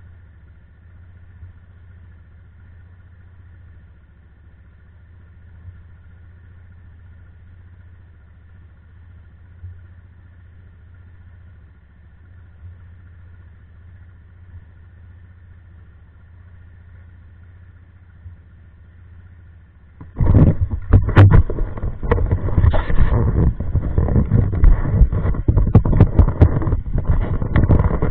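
ATV engine idling with a steady low hum, then about 20 seconds in the quad pulls away and the engine and riding noise turn suddenly much louder and rougher, with many sharp, uneven spikes.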